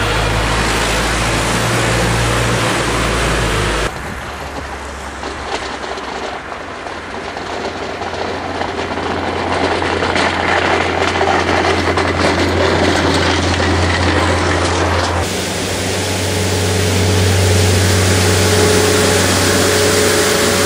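Avant compact loader running, in three spliced takes: a steady engine hum, then from about four seconds in a quieter, noisier stretch as it pushes snow with a front plough blade, then from about fifteen seconds a steady engine drone as it works a front mowing attachment on grass.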